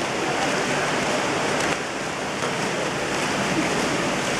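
Splashing water from several water polo players swimming freestyle hard across the pool: a steady wash of churning water.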